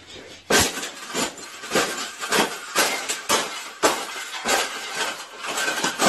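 A round wire birdcage being stomped flat underfoot: a quick series of metallic clanks and rattling crunches, about two to three a second, as the wire frame bends and folds.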